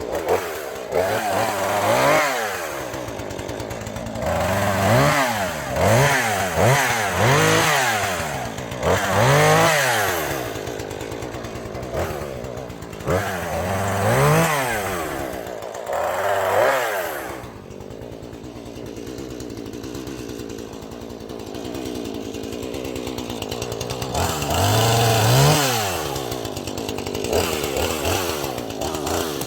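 Husqvarna 440e two-stroke chainsaw revving up and falling back again and again, in a quick run of throttle bursts. It drops to a lower, steadier running for several seconds past the middle, then revs up once more near the end.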